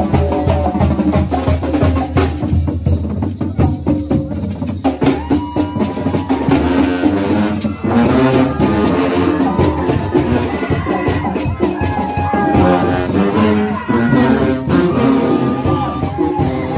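Street marching brass band playing loudly: sousaphones and other brass holding melody notes over a driving beat of drums and cymbals.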